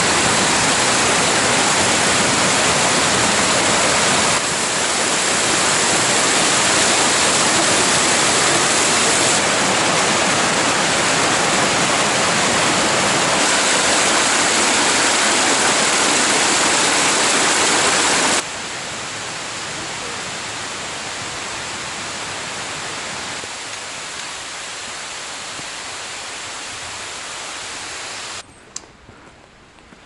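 Mountain stream water rushing and splashing over rocks: a loud, even rush that shifts abruptly in level several times, drops noticeably about two-thirds of the way through, and falls away to quiet near the end.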